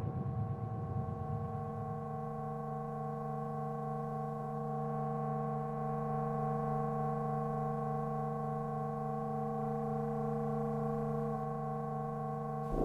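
Synthesized science-fiction sound effect: a steady electronic drone of several held tones sounding together, unchanging, which cuts off right at the end as a different effect begins.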